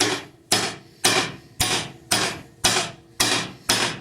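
Hammer tapping a new bearing into an Indiel AVI 128 alternator, steady blows about two a second, each with a short ring.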